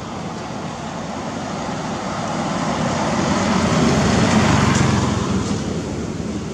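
Road traffic noise: a motor vehicle passes, growing louder to a peak about four seconds in and then fading, over a steady background rumble.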